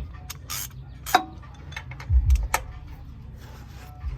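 Scattered clicks and knocks, with two dull low thumps a little after two seconds in, over a steady low hum.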